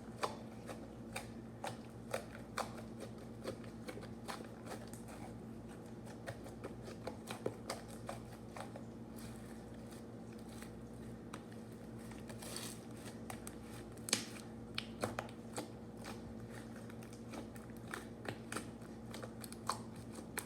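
Slime being spread out and stretched by hand, giving scattered small sticky clicks and pops, over a steady low hum.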